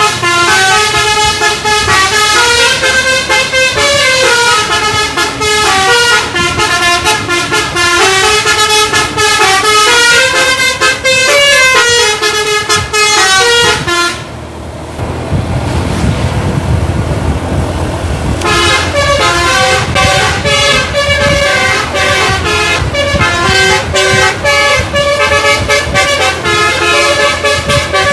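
Telolet basuri multi-tone bus air horn playing melodic runs of stepping notes, loud and continuous. About halfway through it stops for roughly four seconds, leaving a low rumble, then plays another tune.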